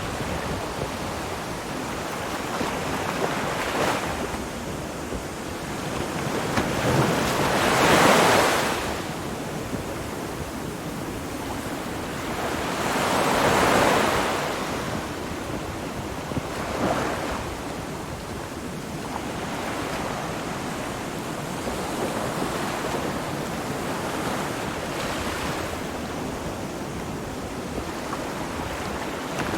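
Ocean waves washing on the shore, a steady surf hiss that swells and fades with each wave. Two bigger waves break about eight and fourteen seconds in.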